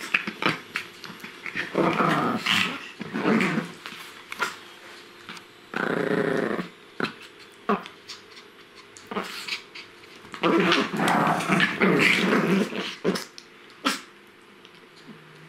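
Two Pomeranian spitz dogs play-fighting and growling at each other in rough bouts, the longest a few seconds long near the end.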